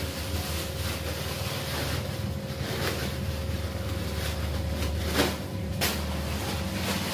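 Thin plastic bags rustling and crinkling as they are handled, with two sharper crinkles about five and six seconds in, over a steady low hum.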